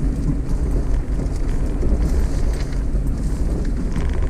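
Off-road 4x4 vehicle driving slowly over a dirt trail: its engine running steadily at low pitch, with wind on the microphone and scattered light knocks from the bumpy ground.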